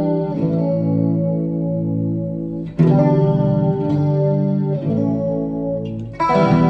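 Electric guitar played through a preset of a BOSS GT-1 multi-effects processor: ringing picked notes and chords with effects. A new chord is struck hard about three seconds in and again near the end.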